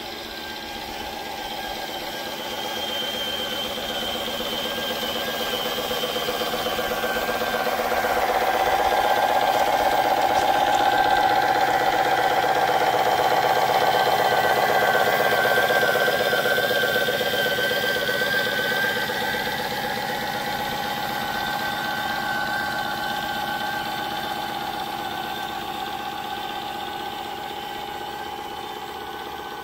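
Electric RC heavy-haul truck (a Tamiya Knight Hauler rebuilt as a Mack Titan) driving, its sound unit playing a diesel engine note with a thin whine above it. It grows louder to a peak about a third of the way in as the truck passes, then fades.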